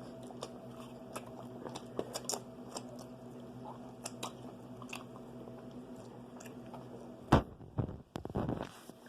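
Close-miked eating of fried chicken: small crisp bites and mouth clicks over a low steady hum. One sharp, much louder hit comes about seven seconds in.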